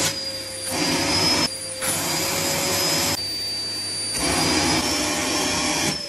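Vacuum cleaner with a hose running, a steady motor whine over a rush of sucked air. The rush strengthens and weakens several times as the hose is moved while its suction is tried out.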